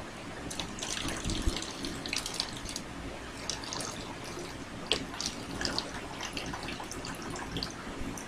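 Water poured from a small plastic bottle into a PET bottle, a steady trickle and splash as it fills. A couple of sharp clicks stand out, about one and a half seconds and five seconds in.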